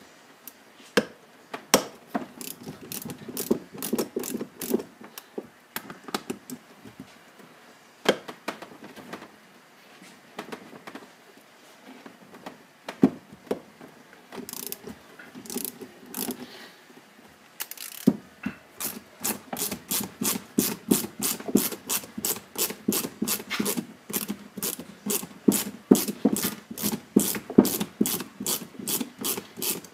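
Ratchet wrench clicking as bolts are turned out, in short runs of clicks at first, then a fast, even run of clicks through the second half. The bolts hold together the halves of a Nissan 300ZX Z32 brake caliper being split apart.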